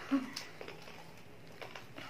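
A child biting and chewing fried chicken: soft scattered mouth clicks and smacks, with a short vocal sound from the child just after the start.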